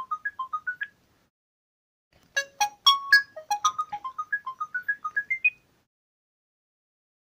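Alcatel One Touch 101 mobile phone's power-on/power-off jingle, a short electronic tune of quick, bright single notes. One playing ends about a second in on a rising run. After a pause the tune plays again for about three seconds, ending on a quick rising run of notes.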